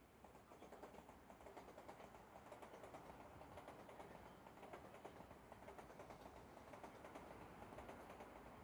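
CRH high-speed multiple-unit train rolling past across the yard tracks, its wheels making a faint, rapid, steady clatter over the rail joints and points.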